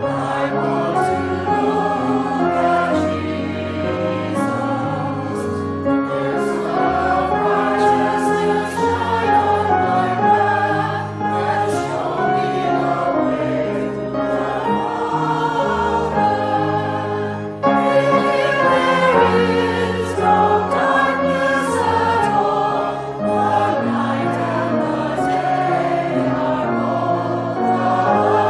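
A choir sings a sacred song over held low notes. It swells fuller and louder after a brief dip about two-thirds of the way through.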